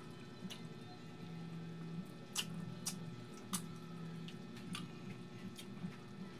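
Wet mouth smacks and sharp clicks of someone eating saucy eel in coconut milk with his fingers. The clicks are irregular, roughly one a second, over a steady low hum.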